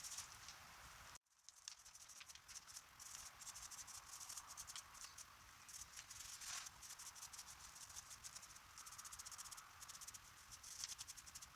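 Faint, quick scratchy strokes of an old toothbrush's bristles scrubbing sanding dust off a small painted fairy house ornament, with a brief break about a second in.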